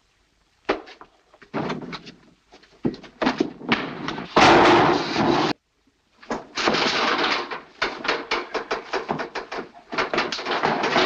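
Slapstick crashing and banging of wooden barrels and a galvanised metal can as a man falls among them. Scattered thuds come first, then a loud crash that stops abruptly, then a rapid run of bangs and clatters building to another loud crash near the end.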